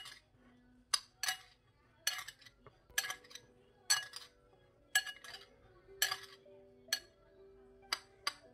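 Metal spoon clinking against a ceramic bowl while stirring a chopped salad: sharp, ringing clinks about once a second, some in quick pairs.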